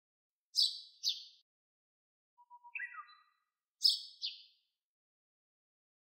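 Eurasian tree sparrow chirping: two pairs of short, high chirps, with a brief run of lower notes stepping down in pitch between them.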